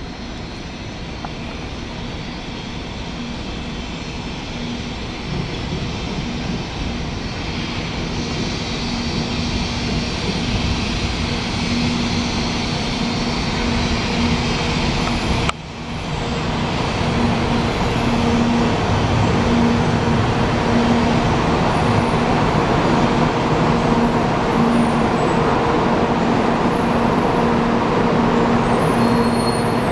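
A 700 series 'Rail Star' Shinkansen train rolling into the platform, its rumble and rushing air growing steadily louder as it draws alongside. A low hum pulses in the second half, and the sound breaks off briefly about halfway through.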